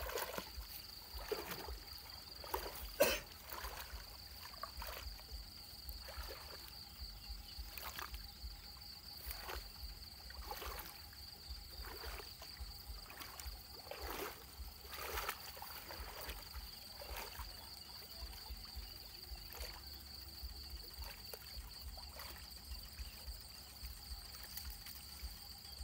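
Water sloshing and swishing in uneven strokes every second or so as a bamboo-framed scoop net is pushed through shallow canal water by a man wading, with one sharp knock about three seconds in. A steady high-pitched tone runs underneath.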